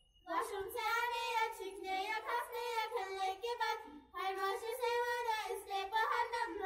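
A child singing in a high voice with long, wavering held notes, breaking off briefly about four seconds in.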